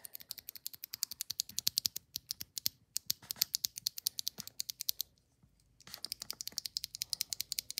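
Typing on a Langtu LT84 mechanical keyboard with its stock linear golden switches: a fast run of keystroke clacks, a short pause a little past the middle, then more typing.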